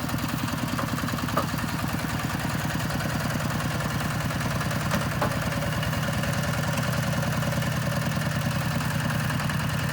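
Single-cylinder diesel engine of a Kubota RT140 two-wheel walking tractor running steadily at an even, unchanging speed.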